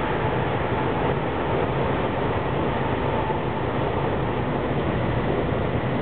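Steady rushing background noise with a low rumble, even throughout, with no distinct calls or events standing out.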